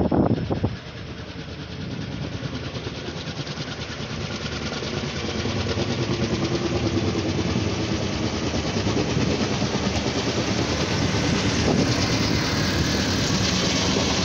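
Firefighting helicopter carrying a water bucket on a long line, flying overhead with its rotor beat growing steadily louder as it approaches. A brief loud rush of noise comes in the first second.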